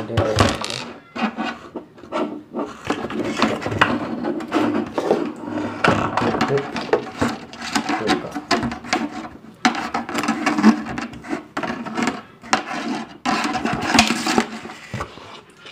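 Irregular rubbing, scraping and knocking as a clear plastic cup and speaker wire are handled right at the microphone.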